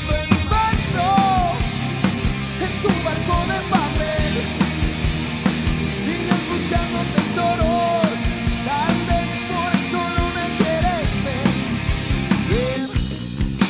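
Rock band playing an instrumental passage: an electric guitar lead with bending notes over drum kit with cymbals and bass.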